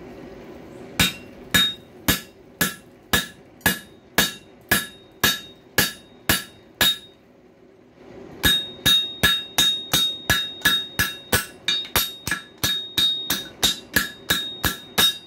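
Hammer blows on hot coil-spring steel on an anvil, forging a shoulder on a screwdriver blank, each blow with a short metallic ring. About a dozen blows at roughly two a second, a pause of over a second, then a faster run of about twenty blows, over a steady low hum.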